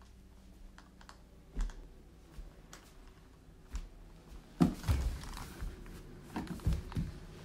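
Irregular light clicks and knocks, with a louder cluster of knocks about four and a half seconds in and a few more near the end.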